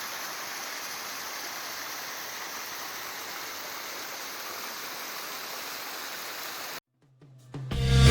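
Steady rush of flowing creek water, cutting off suddenly about a second before the end. Music with a beat and a bass line fades in right after.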